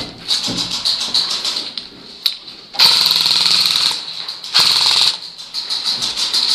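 Airsoft guns firing on full auto: a fast rattle of shots, then a louder burst of about a second near the middle and a shorter burst soon after.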